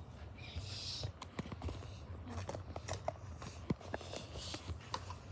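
Small scattered clicks and light rustling of paper and plastic being handled, over a low steady hum.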